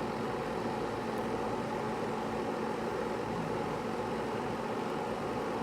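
Spin dryer of a Eureka EWM-650D twin-tub washing machine running at speed: a steady whirring hum at an even level. It spins smoothly, a sign that the spin dryer has no defect.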